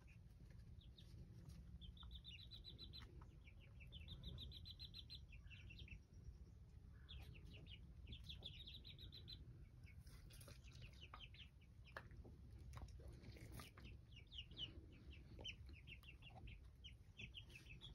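Young black Jersey Giant chicks peeping, in many quick runs of short, high notes.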